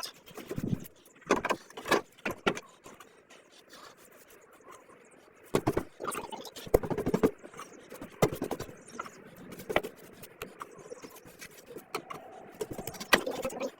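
Irregular scrapes, taps and knocks of a brush working thick, sticky tar sealer onto the sheet-metal base of an evaporative (swamp) cooler, with a quieter lull a few seconds in.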